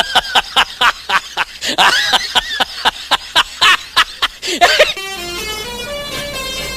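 Rapid irregular clicking with short chirping glides. About five seconds in, a telolet horn starts playing a tune in stepped notes.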